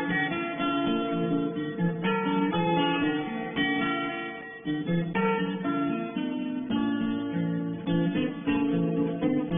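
Background music: acoustic guitar playing a run of picked notes and chords.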